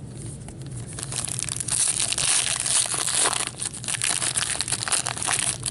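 Foil trading-card pack wrapper crinkling as it is torn open and pulled off the cards by gloved hands, starting about a second in.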